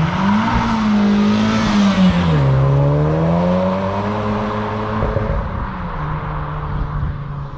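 Honda Civic Type R FK8's turbocharged 2.0-litre four-cylinder, breathing through its stock intake and an HKS cat-back exhaust, pulling hard. The pitch climbs, drops at an upshift about two and a half seconds in, climbs again, then settles lower near the end.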